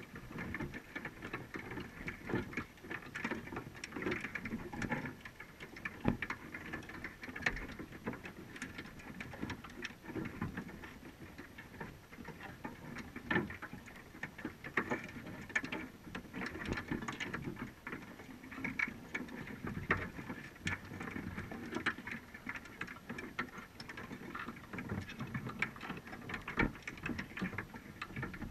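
Underwater crackling and irregular clicking, heard muffled through a GoPro's waterproof housing, over a dull low rumble of water.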